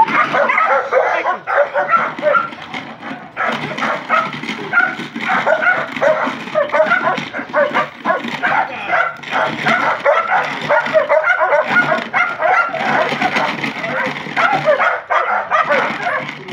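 Two dogs barking and yipping rapidly and almost without pause, the excited barking of dogs worked up on their leads to bite a decoy's bite pillow in protection training.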